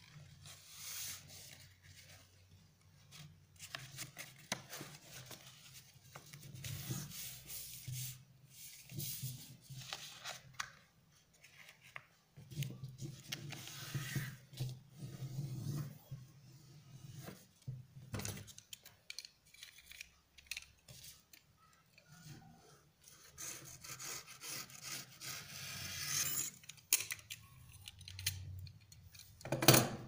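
Paper rustling and crinkling as a sheet is folded by hand, with fingers pressing and rubbing the creases flat in irregular scrapes and rustles.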